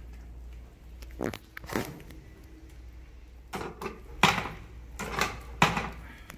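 Tipping plastic platform of a homemade bucket mouse trap swinging down and knocking against its wooden frame: a string of sharp clacks, some in quick pairs, the loudest in the second half.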